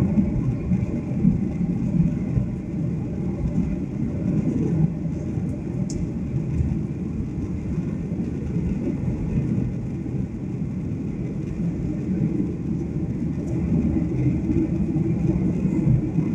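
Steady low rumble of a Boeing 737 airliner's cabin in flight: jet engines and rushing air heard from a window seat.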